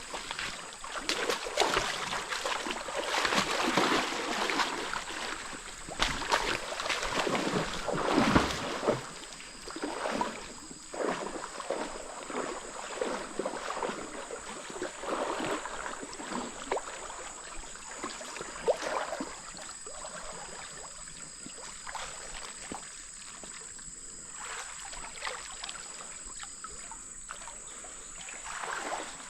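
Water splashing and sloshing in irregular strokes, busy and loud for the first ten seconds or so, then sparser and quieter over a steady rush of flowing water.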